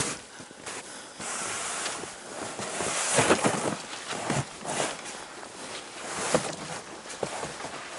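Snow crunching and bare willow branches rustling and scraping in uneven bursts as a person crawls uphill through deep snow, dragging a wooden sled and a fishing box.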